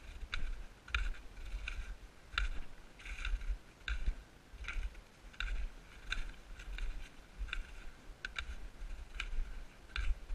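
Footsteps crunching in snow at a steady walking pace, about three steps every two seconds, over a low rumble on the microphone.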